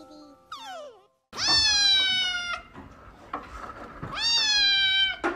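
Kitten meowing: two long, loud meows, each falling slightly in pitch, the first just after a second in and the second near the end.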